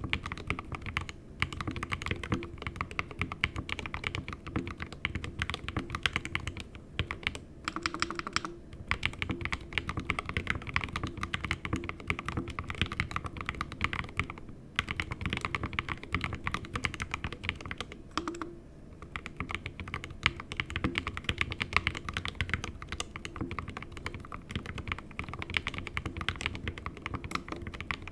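Continuous typing on an SK61 keyboard with lubed 62 g Gateron Optical Red linear switches in an aluminium plate and stock keycaps, set straight on the desk without a deskmat. Fast keystrokes with a few brief pauses.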